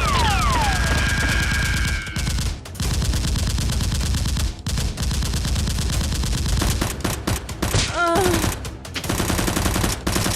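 Sustained rapid automatic gunfire, sound-effect style, with two short breaks in the firing in the first half.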